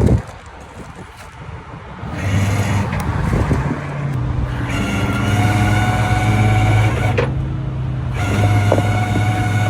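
Rollback tow truck's engine running steadily, coming in about two seconds in, with a steady high whine over it. A single knock right at the start.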